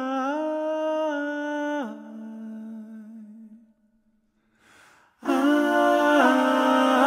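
A cappella singing: a solo voice holds a sung note with small pitch bends, then drops away about two seconds in and fades out. After a short pause and a brief breath, a close-harmony TTBB vocal ensemble comes in loud about five seconds in.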